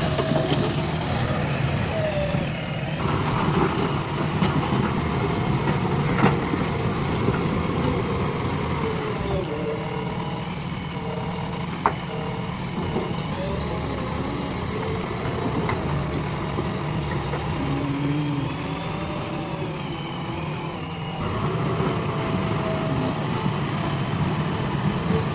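Diesel engine of a JCB 3DX backhoe loader running steadily through digging work, with a single sharp knock about halfway through.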